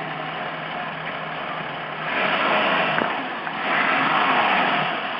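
Volvo Penta AQ205A marine petrol engine idling, then revved up twice, about two seconds in and again near four seconds, each time dropping back to idle. It has just had its top end rebuilt and runs smoothly; it is called "pretty good".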